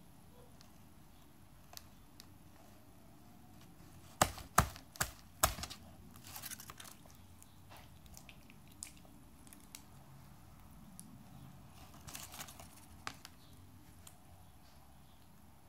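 Slime being pulled and squeezed by hand, making soft sticky tearing and crackling sounds. Four sharp snaps come in quick succession about four seconds in.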